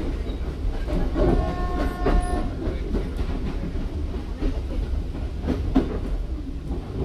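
A moving train heard from on board: a steady running rumble with the clickety-clack of wheels over rail joints and points, and occasional sharper knocks. About a second in, a brief steady high tone sounds for about a second.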